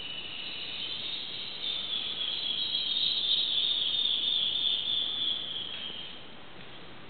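High-pitched insect buzzing that swells in the middle and stops about six seconds in.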